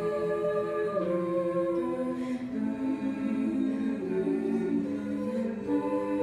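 Five-voice a cappella group singing in close harmony through handheld microphones: slow, sustained chords that shift every second or so.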